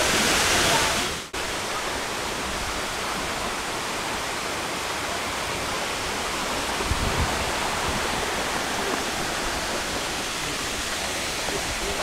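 Steady rushing of a rocky jungle stream and its small waterfall cascades. The sound briefly drops out about a second in, then resumes.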